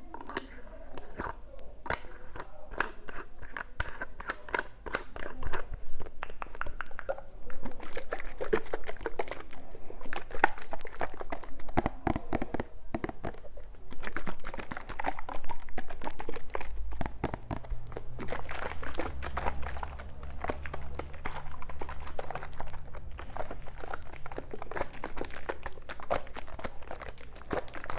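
Dense crunching and crackling close to the microphone, a steady stream of quick clicks, with a low hum joining for a few seconds around the middle.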